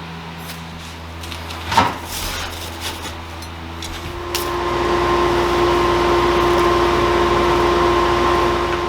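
An electric shop machine's motor running with a steady hum, with a single sharp knock just under two seconds in. About four seconds in it grows louder, with a steady whine and a hiss over the hum.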